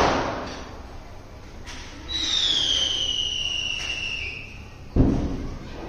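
Firecrackers going off: a bang fading at the start and another sharp bang about five seconds in, each with a short echoing tail. About two seconds in, a whistling firework gives one long whistle that slides slowly down in pitch for about two seconds.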